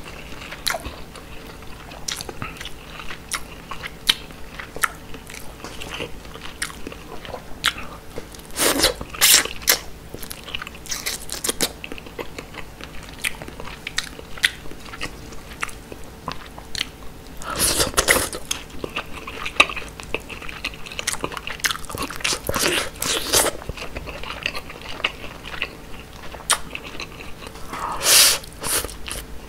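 Close-miked eating of grilled mackerel and rice: wet chewing and biting with many small mouth clicks. Four or five louder, noisier bursts stand out, the loudest near the middle and near the end.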